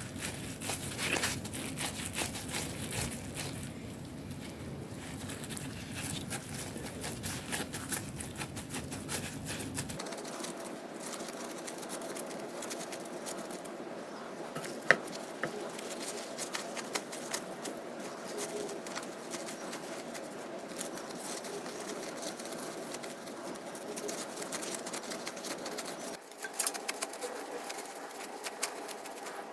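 Food-preparation handling noises: light pattering and many small clicks, with one sharper click about halfway through.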